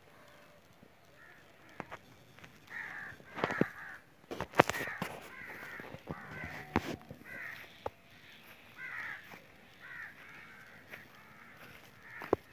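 Crows cawing again and again, short harsh calls about every second. A few sharp knocks cut in, the loudest about four and a half seconds in.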